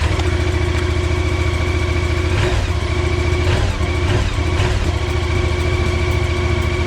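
Yamaha MT-07's parallel-twin engine idling steadily just after starting, with three brief rises and falls in pitch near the middle. It fired up on a freshly installed battery.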